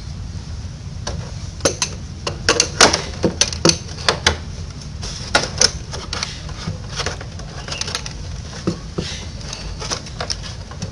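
Irregular sharp metal clicks from a socket wrench on a motorcycle spark plug as the freshly refitted plug is tightened, some clicks coming in quick clusters.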